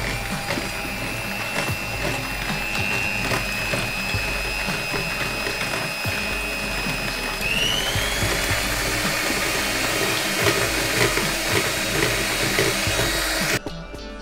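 Electric hand mixer whipping thick cream: a steady motor whine with beater noise, rising in pitch about halfway through, then stopping suddenly near the end.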